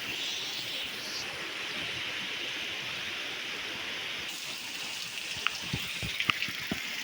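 Rain falling steadily during a storm, with a few sharp taps near the end.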